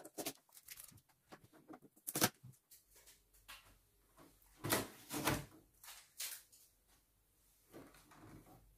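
Scattered plastic clicks and knocks as a new HP Envy 6032e printer is handled at its scanner lid and front paper tray. The clearest knocks come about two seconds in and again around the middle.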